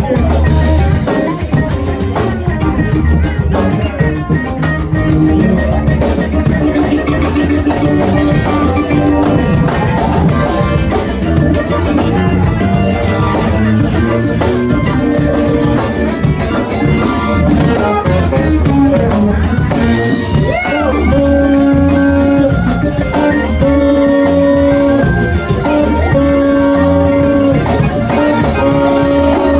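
Live funk band playing an instrumental groove: drum kit, bass and guitar. From about 21 seconds in, long held notes repeat in a steady pattern over the rhythm.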